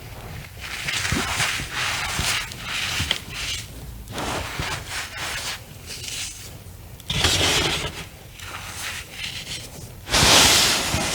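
Reformed cornstarch chunks crushed by hand, crunching and crumbling in repeated bursts, the loudest near the end.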